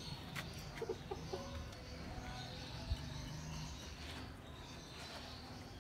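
Chickens clucking, a few short clucks about a second in, over a steady low rumble, with one sharp knock about three seconds in.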